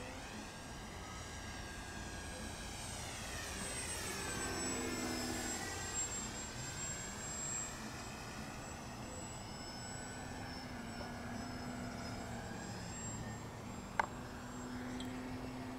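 Flyzone Switch RC floatplane's electric motor and propeller whining in flight, its pitch sliding down and climbing back up in the first half, then holding steadier. A single sharp click about fourteen seconds in.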